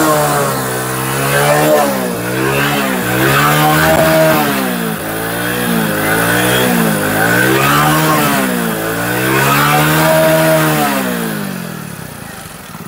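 Motorcycle engine revved over and over, its pitch rising and falling about once a second, then dying down near the end.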